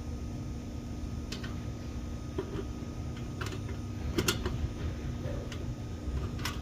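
Scattered light clicks and taps of metal kettle-grill parts being handled and fitted during assembly, a few sharp ones at irregular intervals, over a steady background hum.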